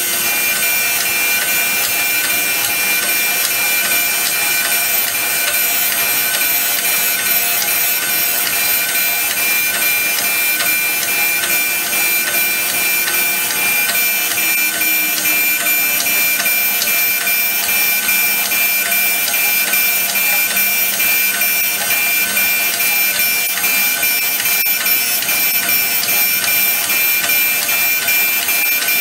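Reid surface grinder running with its abrasive wheel grinding steel parallels dry, without coolant spray: a steady hiss of grinding with a constant high tone from the spinning wheel.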